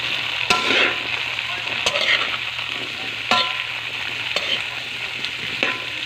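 Squash and green beans sizzling in hot oil in a metal wok, stirred with a metal spatula that clinks and scrapes against the pan about five times, each clink ringing briefly.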